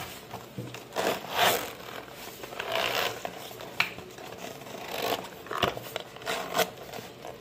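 Zipper of a hard-shell pencil case being pulled shut in several short pulls.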